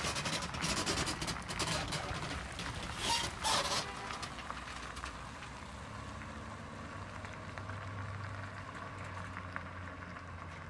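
A vehicle driving on a road, with wind buffeting the microphone: rough rushing noise with crackles for the first few seconds, settling about halfway into a steady low drone.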